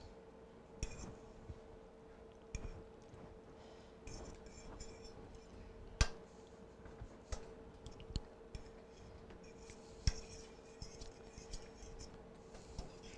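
A metal fork clinking and scraping against a nonstick skillet while gravy is stirred around the meat patties. There are scattered light taps, with two sharper clinks about six and ten seconds in, over a faint steady hum.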